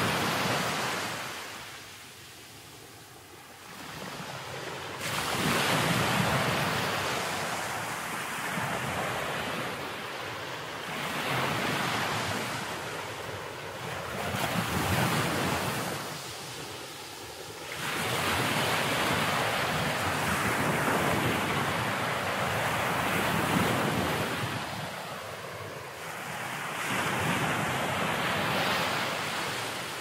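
Ocean surf breaking and washing over a rocky shore in repeated surges, each swelling up and falling back every few seconds, with a longer sustained wash in the second half.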